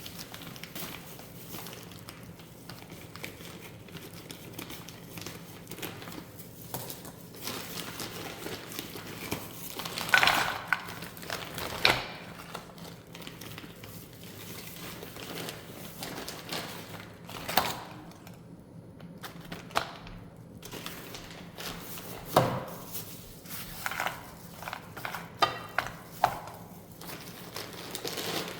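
Kitchen handling sounds: scattered knocks and clicks of utensils and dishes, with some crinkling of packaging, over a faint steady low hum.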